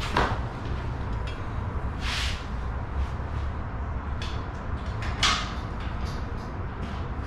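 Metal hardware being fitted to a steel roof basket: three short scrapes, at the start, about two seconds in and about five seconds in, as a bracket and bolt are worked into place, over a steady low hum.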